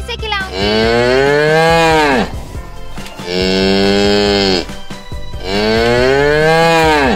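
Cattle mooing: three long, loud moos with short gaps between them, the first and last sliding down in pitch as they end.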